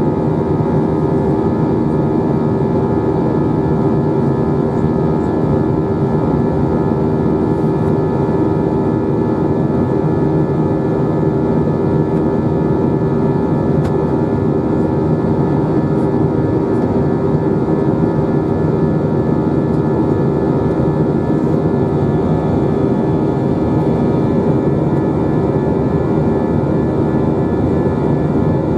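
Airbus A321 jet engines heard from inside the passenger cabin: a loud, steady drone with a hum that holds one pitch throughout.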